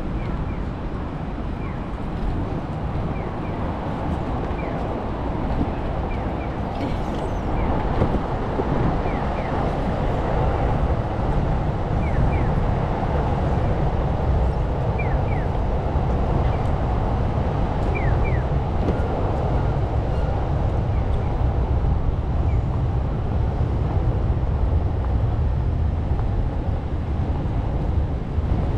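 City street traffic: a steady low rumble of passing vehicles, growing a little louder about eight seconds in, with short high chirps scattered through the first two-thirds.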